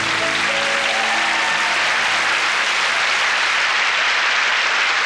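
Audience applauding steadily, with the band's last held notes fading out in the first second or so.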